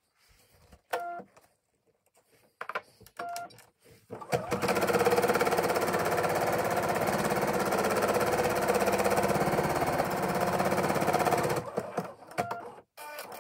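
Bernette B79 computerised embroidery machine stitching steadily at speed for about seven seconds, starting about four seconds in and stopping near the end, after two short beeps. It is sewing the placement line, the first outline that marks where the appliqué fabric is to be laid.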